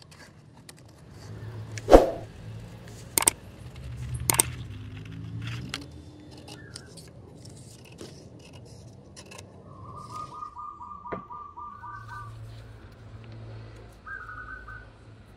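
Scissors cutting a paper template: a few sharp snips, the loudest about two seconds in, with paper rustling between them. A bird gives short rapid trills twice in the background near the end.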